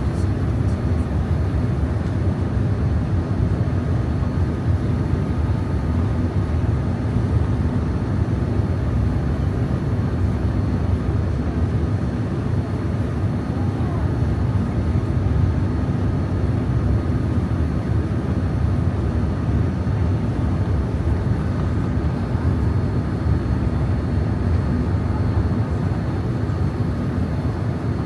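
Steady cabin noise aboard a Boeing 787-9 in flight: an even, low hum of engines and airflow with no change in level.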